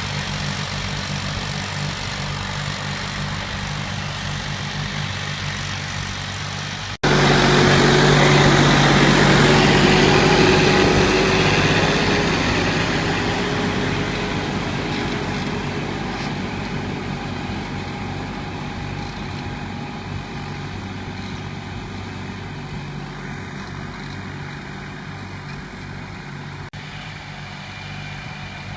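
Farm tractor's diesel engine running steadily. After a sudden break about a quarter of the way in, the engine is louder, then slowly fades.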